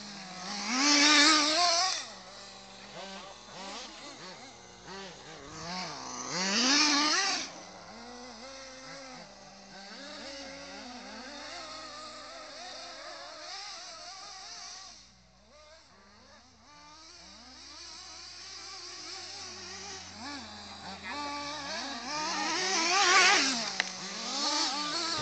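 Petrol-engined remote-controlled cars racing, their small two-stroke engines revving up and down. The engines get loud as cars pass close by about a second in, again about six seconds in, and near the end.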